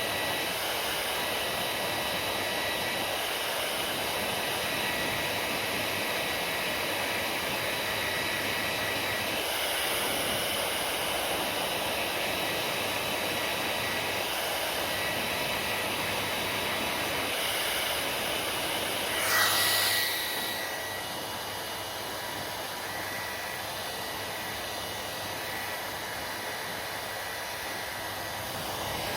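Hair dryer blowing steadily: an even rush of air with a faint high whine, swelling briefly louder about two-thirds of the way through, then running a little quieter.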